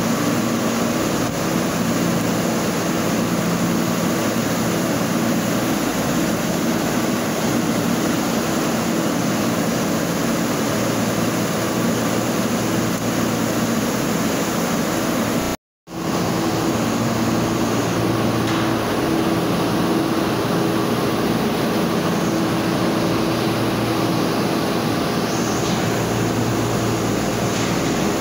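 Steady loud din of factory machinery: an even roar with several constant low hums. It cuts out for an instant just past halfway.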